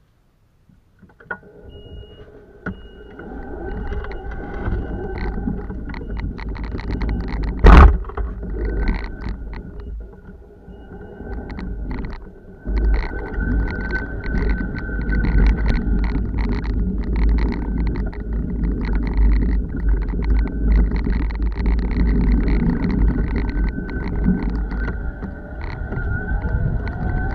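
Electric motor of a Heartway Vita S12X all-terrain mobility scooter whining steadily as it drives, with wind rumbling on the microphone, much heavier from about halfway on. A single sharp knock about eight seconds in is the loudest moment.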